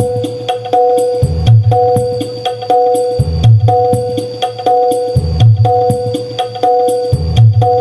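A song playing loud through a homemade SPL-style subwoofer box fitted with a reverse-mounted Legacy driver, heard on a porch sound test. Deep bass hits come about every two seconds under a busy percussive beat and a steady tune.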